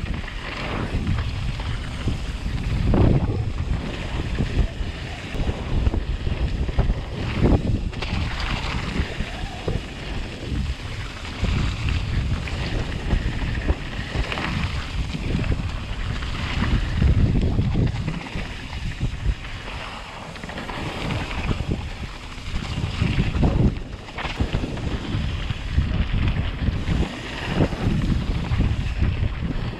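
Wind rushing over a chest-mounted action camera's microphone on a mountain bike descending a dirt singletrack, with tyre noise on the dirt and knocks as the bike goes over bumps. The noise surges and eases with speed, and a few harder knocks stand out.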